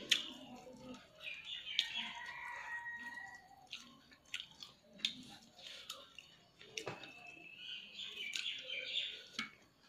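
Mouth sounds of eating rice and curry by hand: chewing, with sharp wet smacks and clicks scattered through. Short high chirps, like birds, sound in the background, longest about two seconds in and again near the end.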